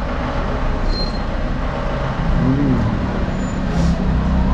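Road traffic rumbling steadily, with a short tone that rises and falls about halfway through.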